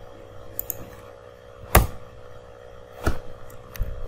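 Two sharp clicks of a computer mouse, just over a second apart, with a few faint ticks between them, over a faint steady hum.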